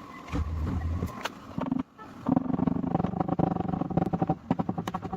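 Rapid light tapping on a car's steel body panel, about ten taps a second, over a steady hum. This is typical of knocking down a small high spot during paintless dent repair.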